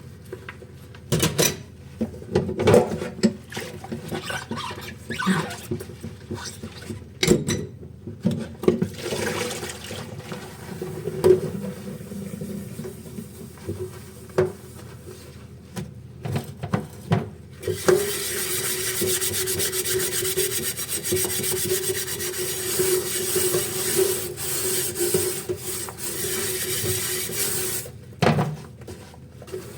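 Dishes being washed at a sink: scattered clinks, knocks and scrubbing, then a tap runs steadily for about ten seconds from a little past halfway and shuts off near the end with a knock.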